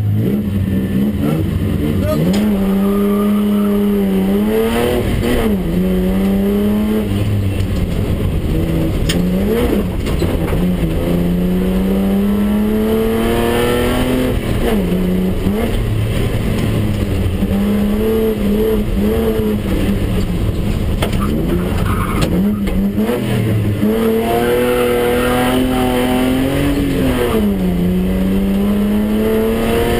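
BMW 320/6's straight-six engine heard from inside the cabin, driven hard: it revs up steadily, then drops sharply at each gear change, again and again, over steady tyre and road noise.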